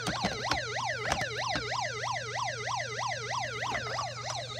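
Electronic siren of a 1994 Hess toy truck playing through its small built-in speaker: a fast, even up-and-down yelp, about two and a half sweeps a second.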